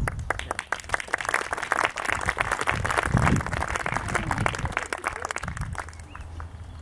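Small audience clapping, a dense patter of handclaps that thins out and fades near the end.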